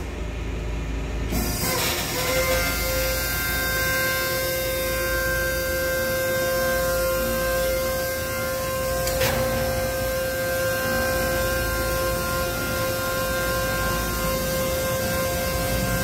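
V63HD vertical cardboard baler's hydraulic pump motor running as the press plate is raised, starting about a second and a half in with a steady hum and whine. A single sharp click about halfway through.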